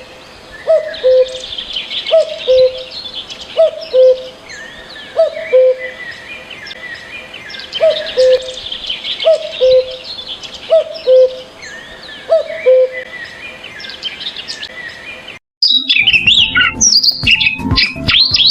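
Birds calling: a low two-note call, a short higher note dropping to a held lower one, repeated about once a second in two runs, over scattered higher chirps and trills from other birds. The sound breaks off briefly near the end and gives way to a busier tangle of quick chirps and squawks.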